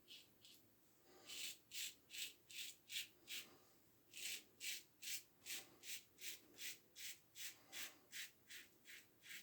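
Gem push-button single-edge safety razor with a Gem Super Stainless blade scraping through whiskers in short, quick strokes, about two to three a second, with a brief pause about three and a half seconds in.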